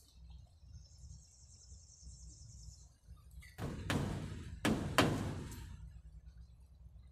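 Hammer striking the wooden frame of a pallet-board pen: four sharp blows in two quick pairs, about a second apart, midway through.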